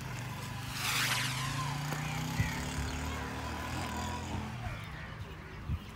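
A motor vehicle's engine passing by, swelling about a second in and then fading over the next few seconds.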